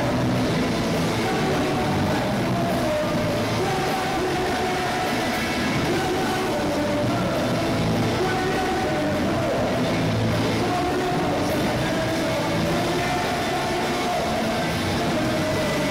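Oi! punk band playing live: distorted electric guitars, bass and drums in a loud, steady, dense wall of sound, heard from the audience floor.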